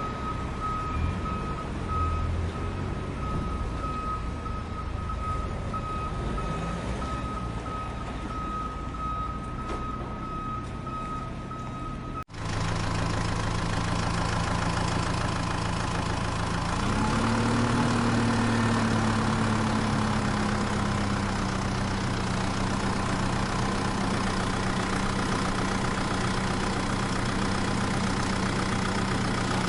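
Vehicle reversing beeper pulsing steadily over engine noise, then after a sudden cut an engine idling steadily, its pitch rising briefly a few seconds later before settling.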